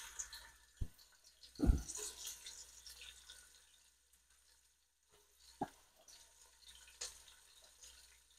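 Chopped onion frying in hot oil in a cooking pot: a few scattered pops and crackles and one duller knock about two seconds in, with faint sizzling that dies down to near quiet after about three seconds.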